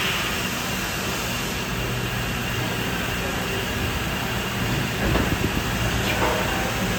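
Okuma 2SP-35HG CNC turning center running, a steady machine hum with hiss, and some light clattering about five seconds in.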